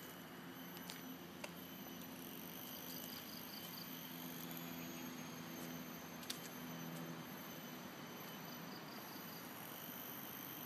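Faint outdoor ambience: a steady hiss with a low hum underneath, a few sharp ticks, and twice a short run of four or five high chirps.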